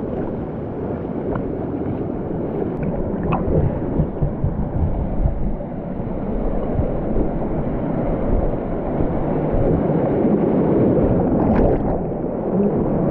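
Steady rush of a mountain stream in a canyon: a dense, continuous water noise, heaviest in the low range, with a few faint ticks.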